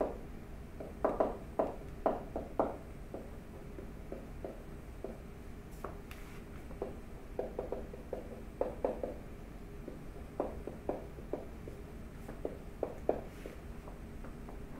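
Stylus tapping and scraping on a tablet as words are handwritten, in irregular clusters of short ticks over a faint steady hum.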